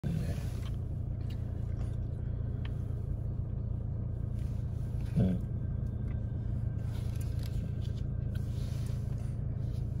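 Steady low rumble of a Chevrolet car heard from inside its cabin, with a brief louder sound about five seconds in.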